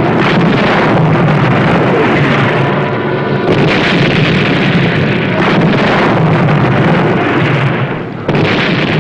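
Film battle sound effects: several explosions over a steady low engine drone. The last blast comes just after a brief dip near the end.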